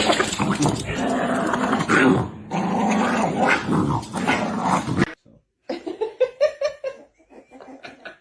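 A dog growling: a loud, rough stretch that cuts off suddenly about five seconds in, followed after a short pause by a run of shorter pitched growls.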